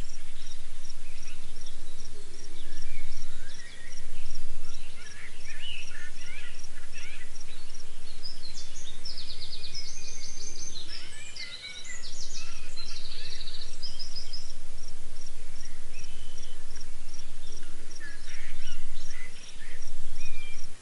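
Night ambience of an insect chirping steadily, a high pulse about two to three times a second, with birds calling in short chirpy bursts now and then. A steady low hum sits under it all.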